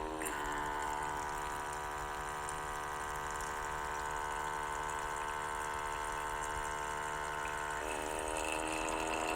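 Outin Nano portable espresso machine's electric pump running with a steady hum, pushing room-temperature water through the unit in a cleaning flush before first use. Its tone changes a little near the end.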